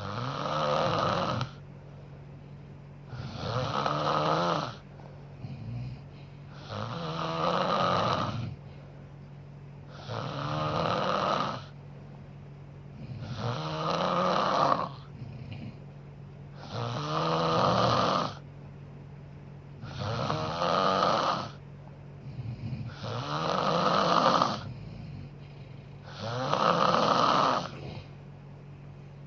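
A sleeping woman snoring loudly and steadily, one rough snore on each breath about every three seconds.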